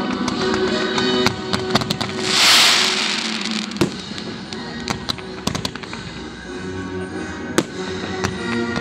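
Fireworks display: a rapid series of sharp cracks and pops from shells and comets, with a loud hissing burst about two seconds in that lasts about a second.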